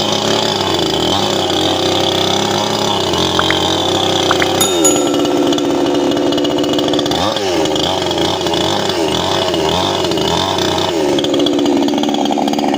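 iBell 6218CS 62cc two-stroke petrol chainsaw engine running. It holds steady at first, shifts pitch about four and a half seconds in, dips and recovers briefly around seven seconds, then wavers up and down with the throttle.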